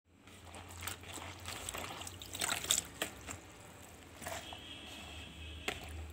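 Dried red chillies dropped by hand into a steel mixer-grinder jar: light crackly rustling and ticks against the metal, thickest about two to three seconds in, with a couple of single taps later.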